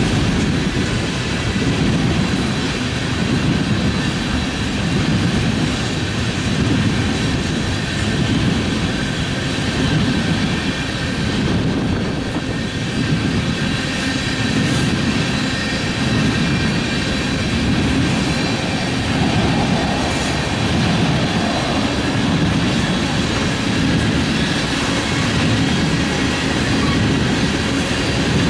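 Freight train of tank cars rolling past: a steady, loud rumble of steel wheels on rail, with faint thin high steady tones above it.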